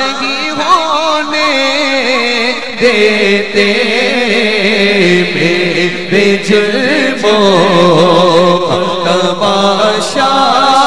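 A male voice sings a naat, an Urdu devotional poem, into a microphone. It is drawn out in long, ornamented phrases, with held notes that waver up and down.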